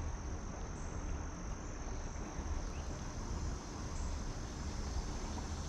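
Steady, high-pitched chorus of insects such as crickets, droning without a break over an even low rumble of outdoor background noise.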